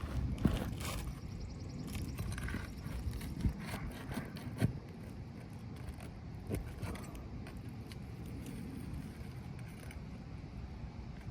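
Hand tools scraping and knocking on asphalt roof shingles as a shingle is worked loose and pulled out, with several sharp clicks and knocks in the first five seconds over a low rumble.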